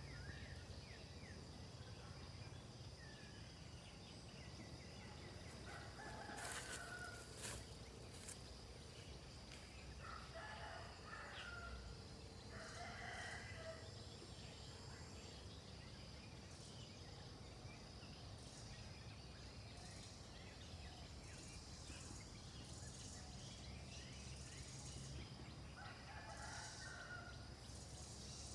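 Roosters crowing faintly, about four separate crows spread across the stretch, over a faint steady high-pitched hum and low background noise of a rural afternoon.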